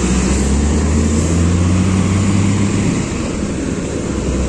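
Bajaj Pulsar single-cylinder motorcycle engine running steadily under way, heard with heavy wind and road rumble on the phone microphone. The low engine hum eases slightly about three seconds in.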